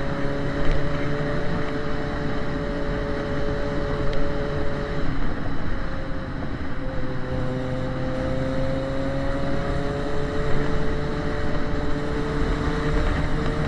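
Yamaha XJ6 motorcycle's 600 cc inline-four engine with an open exhaust, running at steady, moderate revs while riding, its pitch rising slightly midway.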